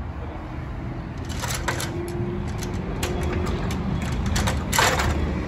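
Fiberglass extension ladder being shifted and set against a wall, its metal feet and rungs knocking and scraping on the concrete, with a louder knock near the end. Steady street traffic rumble underneath.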